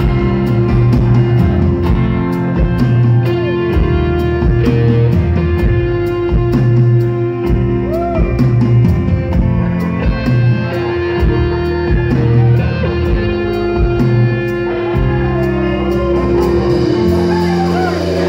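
Live rock band playing an instrumental passage: electric guitar and drum kit over a steady beat, with a long held note. Cheers and whoops from the crowd rise near the end.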